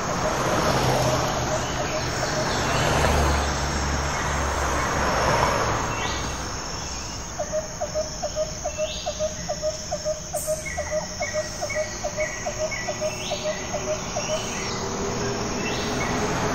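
Stock sound effects of street ambience: traffic swelling past with a low engine rumble in the first half. Then a steady rhythmic chirping, about three chirps a second, runs for about seven seconds, with higher bird-like chirps over it.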